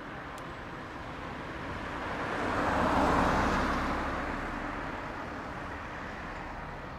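A road vehicle passing close by: a rushing noise that swells to a peak about three seconds in and then fades, over a steady rumble of distant traffic and jet noise.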